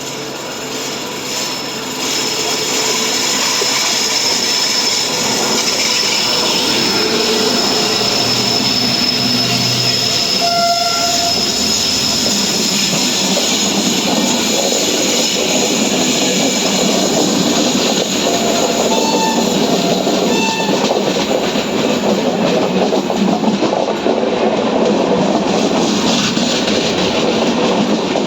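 Train passing close at speed, its wheels clattering over the rail joints, with a short horn blast about eleven seconds in and two more a little before and after twenty seconds.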